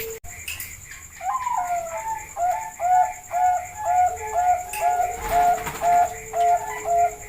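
Zebra dove (perkutut, Bangkok strain) singing: a gliding opening note about a second in, then a rapid regular series of short coo notes, about two and a half a second. A second, lower-pitched coo runs beneath the second half.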